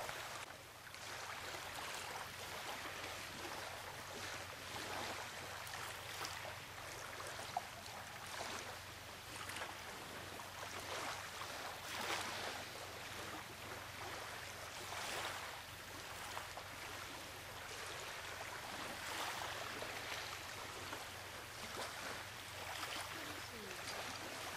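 Running water of a stream, a steady rush with irregular brighter swishes over it.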